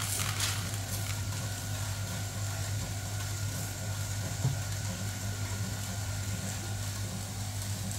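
Gas-fired popcorn machine running: its 12-volt stirrer motor hums steadily, with a thin steady whine, over the even sound of the gas burner flame under the pan.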